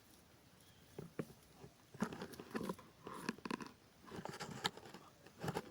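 Irregular crunching, rustling and knocking handling noises, starting about a second in and coming in quick clusters through the rest.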